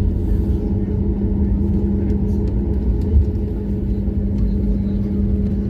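Airliner cabin noise: a steady low rumble of the engines and airflow with a constant hum running through it.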